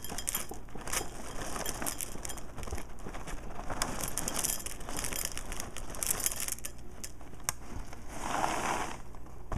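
Dry marshmallow breakfast cereal poured from its box into a ceramic bowl, the pieces rattling and crackling as they land in several spurts, the biggest one near the end.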